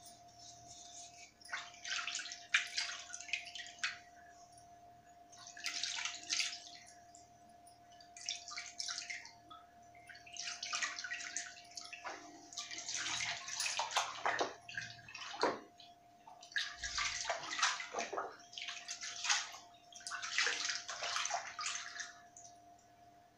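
Water sloshing and splashing by hand in about seven bursts as a small brass item is swished and washed in a basin, then rinsed in a tub of water near the end.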